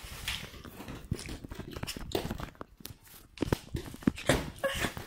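Footsteps on a wooden floor mixed with rustling and knocking from a hand-held phone carried while walking, in uneven soft thuds.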